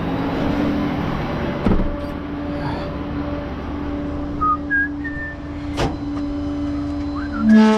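Steady mechanical hum of a running vehicle, most likely the tow truck idling, with two sharp clicks and a brief loud buzzing tone near the end.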